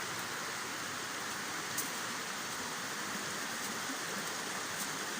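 Steady rushing of water falling down an artificial waterfall.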